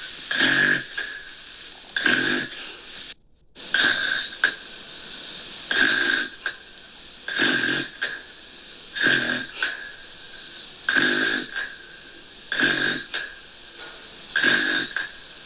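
Snoring in a steady rhythm: a short snore about every two seconds, nine in all, with a brief gap of silence about three seconds in.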